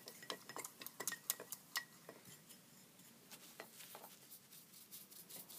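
Light clinks and taps from a hand working a tool in a small pot, some with a brief ring. They come several a second over the first two seconds, then more sparsely.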